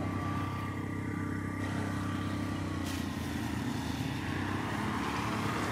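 A motor vehicle's engine running steadily nearby: a continuous low hum with no rise or fall.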